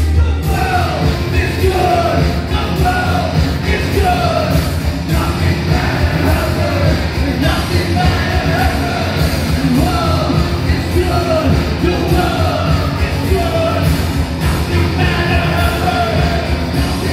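A live rock band playing loud: electric guitar, a steady driving beat with heavy bass, and yelled, sung vocals over a repeating melody line.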